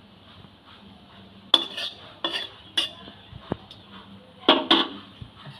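A metal spatula striking and scraping against a metal karai (wok) in about six sharp clinks, starting about one and a half seconds in. Under them is the faint steady sizzle of cumin seeds frying in hot oil.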